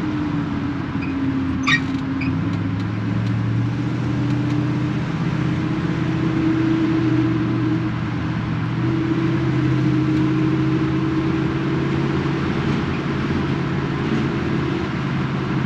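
Car engine running steadily with road noise, its pitch drifting slightly as in cruising. A single sharp click a little under two seconds in.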